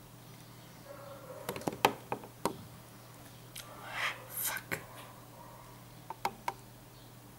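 Ray-Ban sunglasses handled close up: a cluster of sharp clicks and taps from the plastic frame and hinges, a brief rustle about halfway, then three quick clicks near the end.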